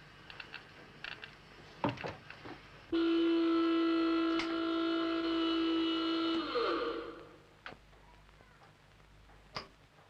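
Glasgow subway train's electrical equipment: a few clicks and knocks, then a loud steady whine cuts in abruptly, holds for about three and a half seconds and sinks in pitch as it dies away. This is the sound of the train losing power as it breaks down in the tunnel.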